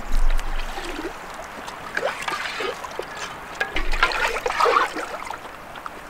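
Water trickling and splashing at a river's edge, in irregular small splashes that come thickest in the middle of the stretch, with a low rumbling bump at the start and another about four seconds in.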